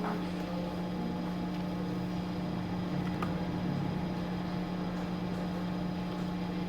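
Steady electric hum of a paper-cutting guillotine's motor running, with no cutting stroke heard.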